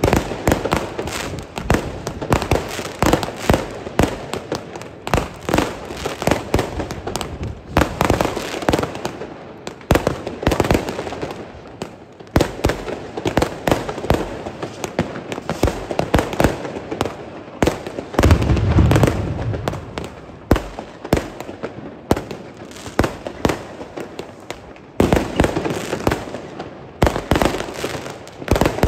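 Many fireworks and firecrackers going off at once: a dense, continuous stream of sharp bangs and crackles, with one heavier deep boom about two-thirds of the way through.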